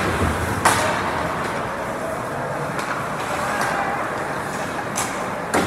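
Ice hockey play heard rinkside behind the glass: a steady rink hum and the scrape of skates on the ice, broken by sharp knocks of stick, puck or boards, the loudest less than a second in and two more near the end.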